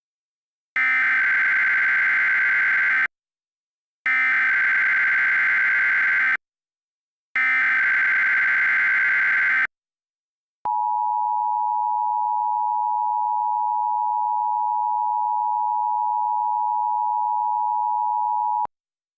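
Emergency Alert System alert tones. First come three identical bursts of digital SAME header data, each about two seconds long with a second's gap between them. Then the steady two-tone attention signal holds for about eight seconds and cuts off, marking the start of a National Weather Service tornado watch alert.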